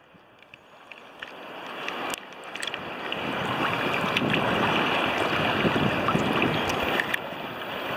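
Small sea waves lapping and sloshing at the water surface close to the microphone, with scattered little splashes. Faint at first, the wash builds over the first two seconds and then stays steady.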